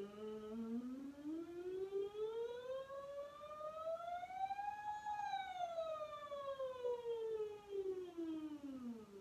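A woman's singing voice doing a vocal siren warm-up: one smooth, unbroken glide from low in her range up to a high note about halfway through, then slowly back down to the bottom.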